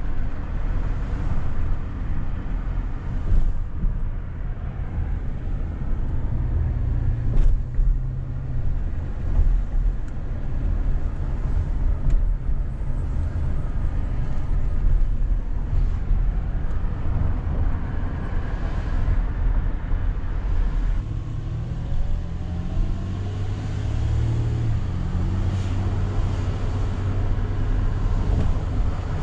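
A car driving slowly, heard from inside the cabin: a steady low rumble of engine and tyre noise.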